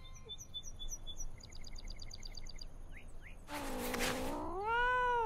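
A few short high chirps and a fast trill of nature ambience, then a cartoon kitten's yawning meow: a breathy start about three and a half seconds in, turning into one call that rises and falls near the end.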